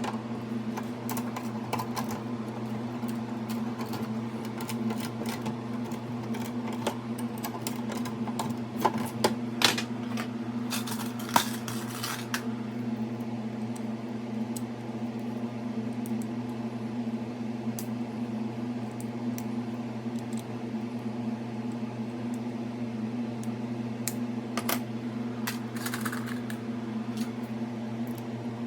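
A steady low electrical hum, with scattered clicks and light clatter of small hard parts being handled, busiest in the first twelve seconds and again near the end.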